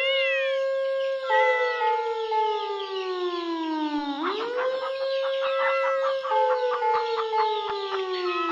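Siren sound effect wailing: it rises quickly, holds, then falls slowly, twice, with other gliding siren tones layered over it. In the second half a run of short, quick repeated notes sounds over the wail.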